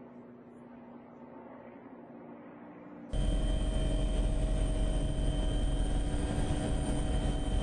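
Steady aircraft engine noise heard from on board, with a few steady tones in it: faint at first, then suddenly much louder about three seconds in, where it holds steady with a high tone on top.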